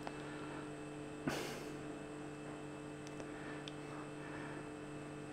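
Steady low electrical hum, with one faint short rustle a little over a second in.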